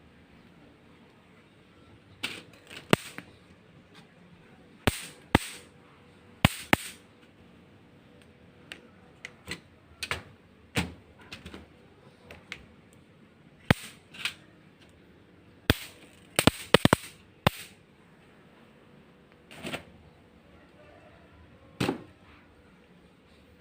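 Sharp, loud snaps at uneven intervals, some single and some in quick pairs or clusters of three, over a low steady background hiss.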